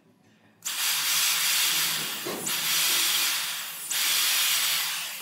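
Electric drill running and boring into a hardwood handrail block, a loud, even high hiss that starts suddenly and dips briefly twice as the trigger is eased and pressed again.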